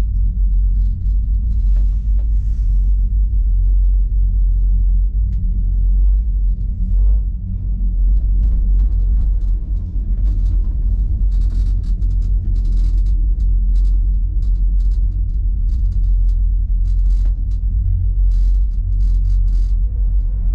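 Steady low rumble of a ride in a small single-person gondola cabin moving along its cable, with scattered light clicks and rattles, more of them in the second half.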